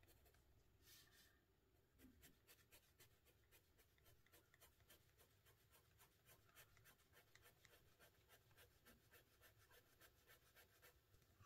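Faint scratching of a colored pencil on paper, many quick short strokes shading small darker areas.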